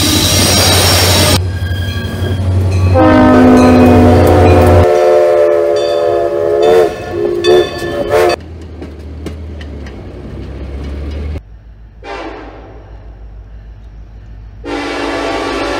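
Diesel locomotive air horns in a series of short cuts: first the loud rumble of a passing locomotive, then a long horn chord of several notes, a short toot about twelve seconds in, and another horn blast starting near the end.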